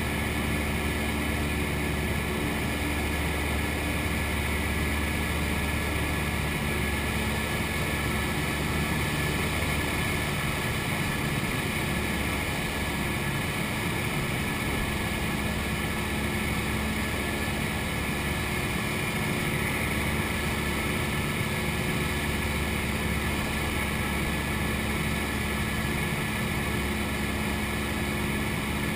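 Cessna 172's piston engine and propeller droning steadily, heard from inside the cockpit, with no change in power.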